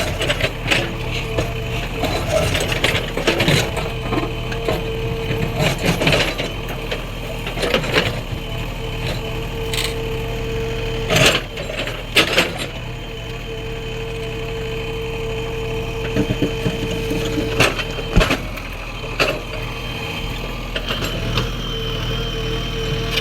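JCB 3DX backhoe loader's diesel engine running steadily with a constant whine, while the bucket scrapes and breaks stone, giving repeated sharp cracks and crunches of rock.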